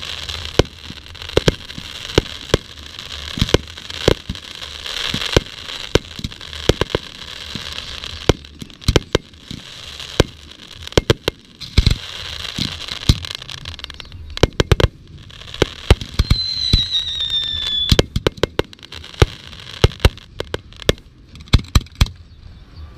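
Fireworks display going off: a rapid, irregular run of sharp bangs over a steady crackle. About sixteen seconds in, a high whistle sounds for about two seconds, falling slightly in pitch. The bangs thin out near the end.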